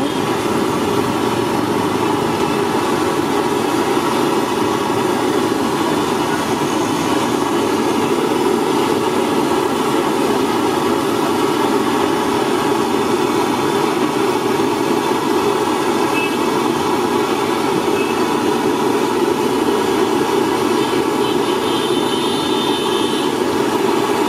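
Samosas deep-frying in a kadai of oil over a gas burner: a steady, loud, low rushing noise with the hiss of the bubbling oil.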